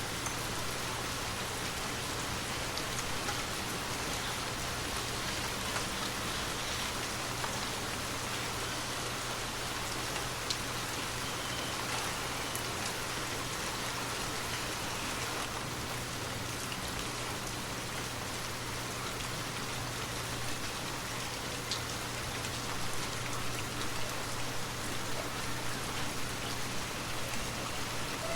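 Light rain falling steadily, a continuous even patter with occasional individual drops ticking out of it.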